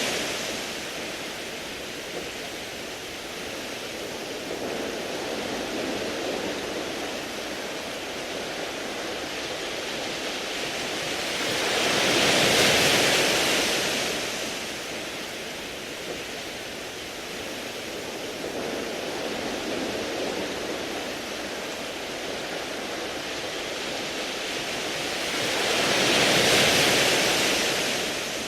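Sea waves washing in over a beach of smooth round pebbles, a steady wash of surf that swells into a big surge about halfway through and again near the end, with smaller swells between.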